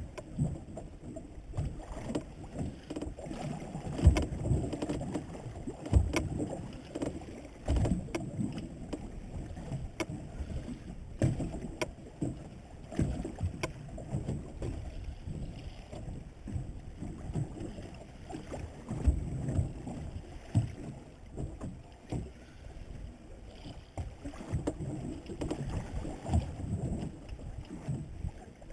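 Water slapping and sloshing against a small boat's hull in irregular low thumps, with scattered sharp clicks and knocks.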